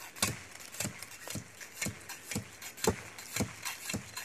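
Curved machete blade chopping at a thin tree trunk: about eight short, sharp strikes at roughly two a second.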